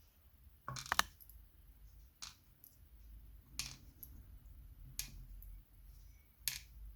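Small sharp metal clicks from handling a disassembled euro cylinder lock and its loose pins: a quick cluster about a second in, then four single clicks about a second and a half apart.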